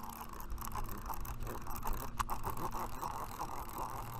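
Conventional round casting reel being cranked steadily to bring in a hooked fish, its gears whirring with a fast run of fine clicks.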